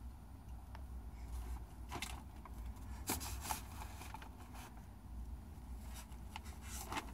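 Faint rustling and scraping of a toddler rummaging in a hanging storage organizer. There are short scrapes about two seconds in, a cluster about three seconds in and more near the end, over a low steady hum.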